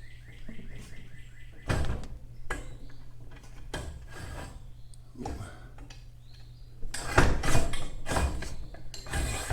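Metal clanks and knocks as a broken garage door torsion spring section is worked off its steel shaft, opening with a run of quick ratchet-like ticks and ending in a dense metallic clatter.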